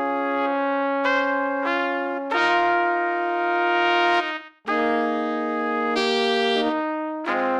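Background music of slow, sustained brass chords that change every second or two, with a short break about four and a half seconds in.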